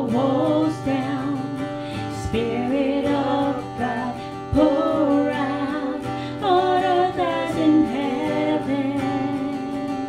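A woman singing a slow worship song into a microphone, her voice amplified through an Alto Professional Trouper portable PA speaker, over strummed acoustic guitar chords. She holds long notes that bend in pitch.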